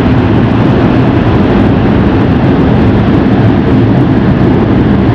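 Mount Bromo's active crater venting during an eruption: a loud, steady rumble that does not let up.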